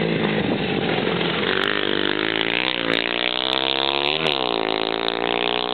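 Minibike engines running hard as the bikes pass and pull away along a dirt track. The engine note sags and then climbs again about four seconds in.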